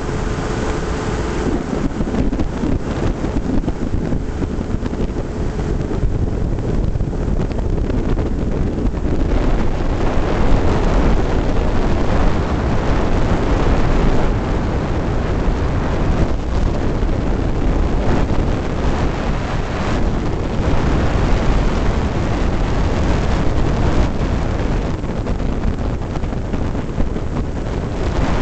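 Steady rush of wind on the microphone of a camera mounted on a flying hang glider's control frame.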